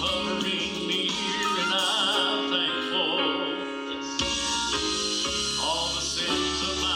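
A song: a voice singing with vibrato over instrumental accompaniment. The bass and fuller accompaniment come in about four seconds in.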